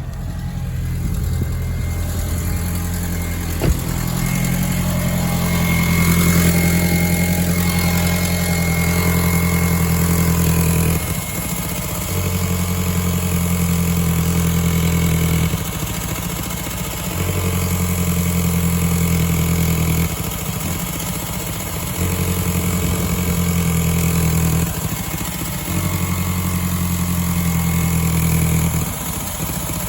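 Volkswagen GTI's 1.8-litre turbocharged four-cylinder (AUM) engine idling just after starting, its steady run stumbling and dipping every few seconds: the misfire on starting that the owner suspects comes from air leaking in the secondary air pump system.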